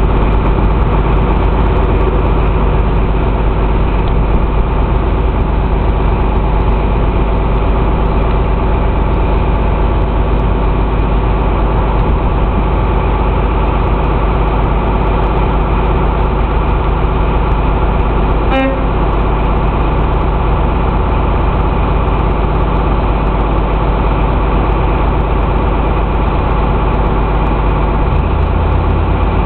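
Class 43 HST diesel power car idling steadily under a station roof, with a short toot of the horn about two-thirds of the way through. The engine note changes slightly near the end, as the train gets ready to depart.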